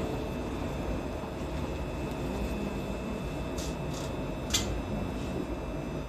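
Steady hum and hiss of a Shonan Monorail suspended car's onboard equipment while it stands at a station, with two faint high steady tones. A few short sharp clicks come about four seconds in.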